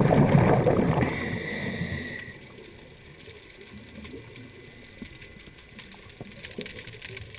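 Scuba diver breathing out through a regulator underwater: a loud gush of bubbles for about the first two seconds, then faint crackling and ticking of the water.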